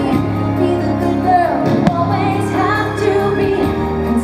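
Fireworks show soundtrack: orchestral music with a woman singing over held notes, with one sharp firework bang about two seconds in.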